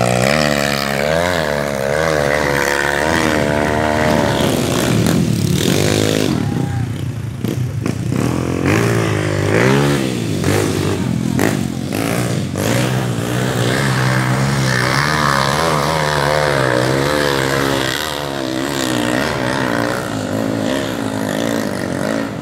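Dirt bike engine revving hard under load on a steep dirt climb, its pitch rising and falling again and again as the throttle is worked. Several sharp knocks come in the middle.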